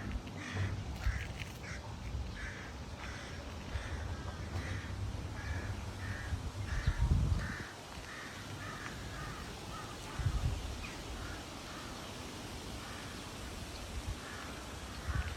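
Birds calling over and over, about two short harsh calls a second, over a low rumble, with two louder low thumps about seven and ten seconds in.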